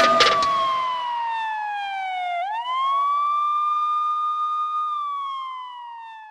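A siren wailing. Its single tone falls slowly, swoops back up about two and a half seconds in, holds, then falls again and fades out.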